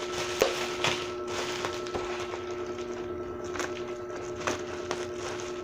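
Bubble wrap and plastic packaging being handled and cut with scissors: scattered crinkles and sharp little clicks, over a steady low hum.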